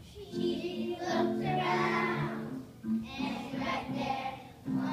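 A group of young children singing a song together, in phrases with a brief pause between them.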